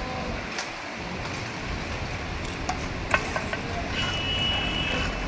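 Steady outdoor background noise with a few sharp taps, the clearest about three seconds in, and a thin high steady tone near the end.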